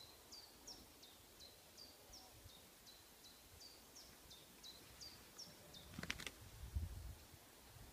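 Faint, quick high chirps of a small bird, repeated about three times a second, in an otherwise quiet outdoor background. About six seconds in the chirping stops and there is a brief flurry of wing flapping and scuffling as a peacock attacks.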